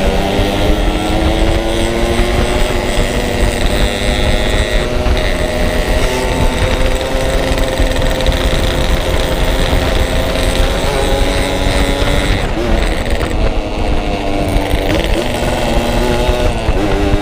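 Yamaha RX-King two-stroke single-cylinder motorcycle engine running under way at cruising speed, its pitch drifting with the throttle and dropping briefly about twelve seconds in before picking up again. Heavy wind rumble on the microphone under it.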